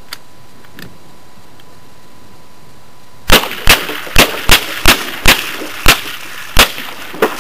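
Marlin semi-automatic .22 rifle fired rapidly, about nine shots in four seconds, starting about three seconds in, at a water-filled plastic milk jug.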